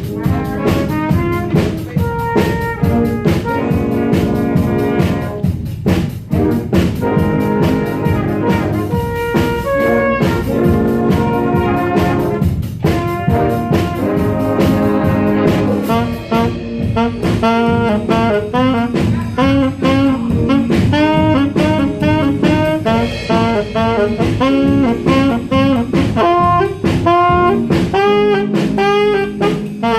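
Jazz band playing, a horn soloing over brass backing and a drum kit. Sharp drum hits punctuate the first half; from about halfway the solo line bends and wavers in pitch.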